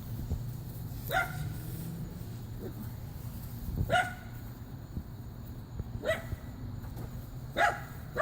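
A dog barking single barks, four in all, about two seconds apart, each short and falling slightly in pitch, over a steady low hum.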